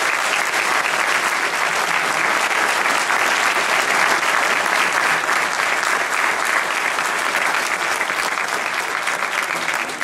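Large indoor audience applauding steadily to welcome a speaker who has just been introduced; the clapping begins to die away near the end.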